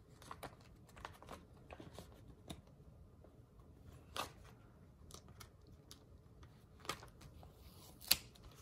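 Planner sticker sheets being handled and a sticker peeled from its backing: scattered soft paper crinkles and ticks, with sharper clicks about four, seven and eight seconds in.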